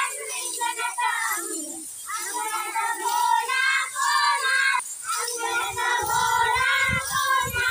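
A group of children singing a Marathi action song together in short rising and falling phrases. A few low thumps on the microphone come in the second half.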